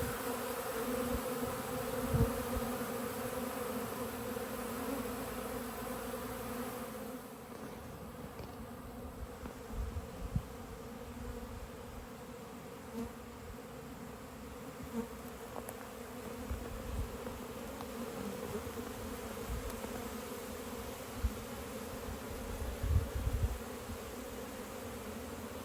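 Honey bees buzzing steadily around a busy hive, a pitched hum of many wings, as foragers fly in loaded with pollen. A few soft low thumps come through now and then.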